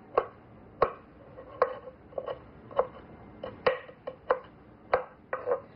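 Chef's knife slicing and chopping fresh ginger on a wooden cutting board: a dozen or so sharp, irregular knocks of the blade on the board.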